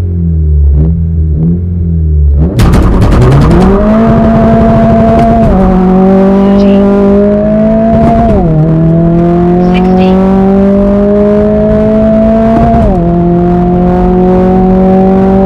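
A modified Honda Civic Si's turbocharged 1.5-litre four-cylinder, running through an aftermarket exhaust with the resonator deleted, first runs low and steady, then launches hard at full throttle about two and a half seconds in. It pulls up through the gears, its pitch rising steadily and dropping at three upshifts.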